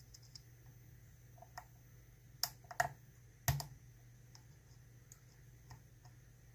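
Dimple lock pick clicking and tapping against the pins and keyway of an ISEO R6 dimple lock cylinder: a few separate sharp metallic clicks, the loudest about two and a half to three and a half seconds in, with fainter ticks between.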